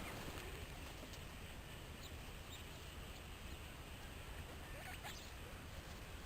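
Faint guinea pig squeaks: a few short rising chirps, the clearest about five seconds in, over a steady background hiss and low hum.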